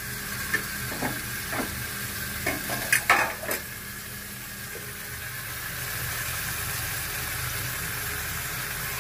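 Marinated chicken leg piece sizzling steadily in oil in a nonstick pan over a low flame. A run of knocks and clatters in the first few seconds, loudest about three seconds in.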